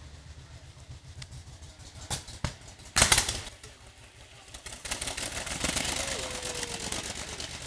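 Vintage racing car's engine approaching through a wet corner, a dense rapid exhaust rattle that builds from about five seconds in and then starts to fade. A short loud thump comes about three seconds in.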